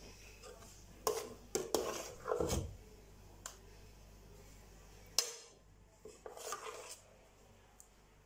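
Metal ladle scraping and clinking against a stainless steel pot and a plate as thick mashed potato is scooped out and served. A cluster of clatters about one to three seconds in, a sharp knock a little after five seconds, then more scraping.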